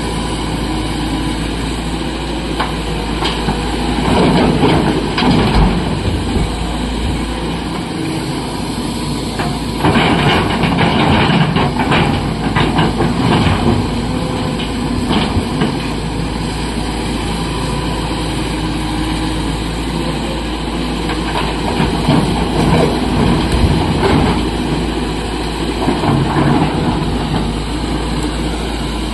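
Diesel engine of a SANY SY225 crawler excavator running steadily. It grows louder in several spells of a few seconds as the boom and bucket work, with scraping and clattering of broken rock.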